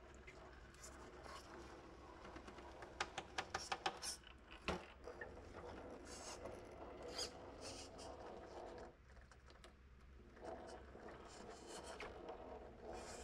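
Redcat Ascent RC rock crawler's tyres and chassis tapping, clicking and scraping over rocks and a log as it crawls slowly, with a quick run of sharp clicks about three to five seconds in.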